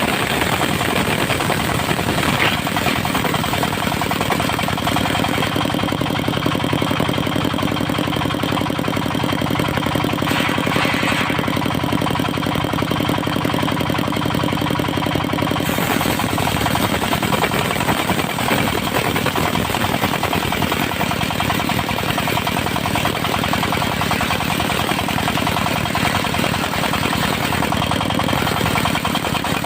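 Engine of a mobile circular-saw sawmill running steadily, its sound changing about halfway through.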